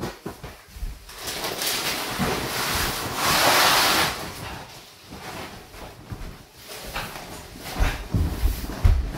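A vinyl-covered hut mattress is being handled and stood on end against a wooden wall: a long rustling scrape of the vinyl, loudest three to four seconds in. Near the end come heavy footsteps thumping on the plywood bunk platform.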